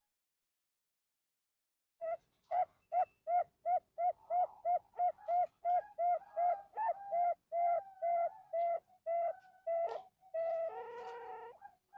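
Male zebra dove (perkutut) singing: starting about two seconds in, a rapid, even run of short coos, about three a second, ending in one longer, fuller coo near the end.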